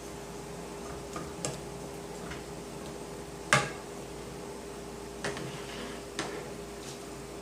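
Kitchen utensils clinking against a cooking pot, about six short clicks scattered through, the loudest about three and a half seconds in, over a steady low hum.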